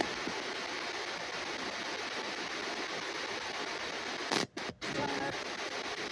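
S-Box spirit box ghost scanner sweeping radio channels: a steady hiss of static, cut off twice for a moment a little past four seconds in, with a faint snatch of broadcast sound just after.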